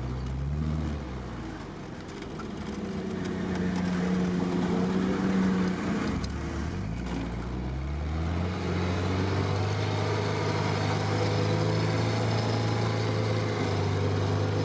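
Off-road vehicle's engine heard from inside the cab while driving through mud. The revs climb and fall several times, drop sharply about six seconds in, then hold steady for the rest.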